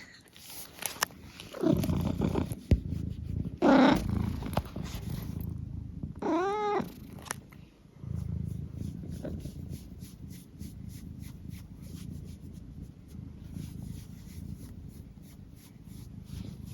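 Domestic cat purring, with a few short pitched calls (chirping mrrps) in the first seven seconds, the loudest about four seconds in, then steady rhythmic purring.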